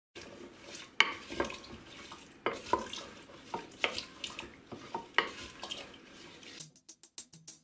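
Wooden spoon stirring chopped apple pieces in liquid inside a large glass jar, with irregular knocks and clunks of the spoon and fruit against the glass. Near the end the stirring gives way to a run of quick, evenly spaced ticks.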